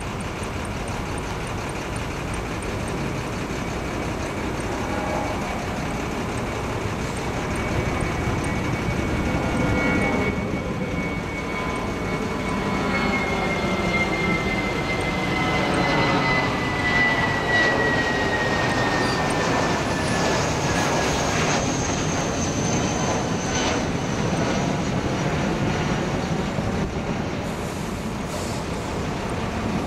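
Twin-engine jet airliner flying low overhead: a steady jet rumble that swells as it passes, with a high engine whine that slides down in pitch as it goes over and away.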